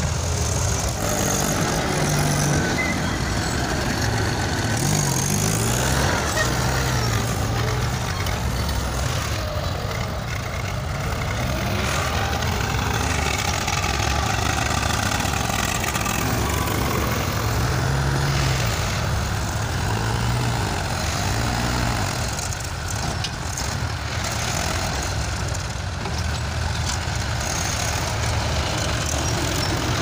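Diesel tractor engines running under load as they drag land-levelling scrapers through sandy soil, the engine note rising and falling.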